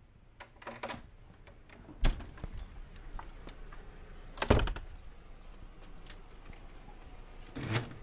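Front door being opened and shut: a run of small clicks and knocks with three heavier thumps, about two seconds in, about four and a half seconds in (the loudest), and near the end.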